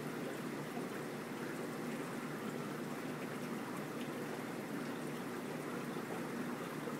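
Steady trickle and rush of running water from a reef aquarium's circulation, even and unbroken.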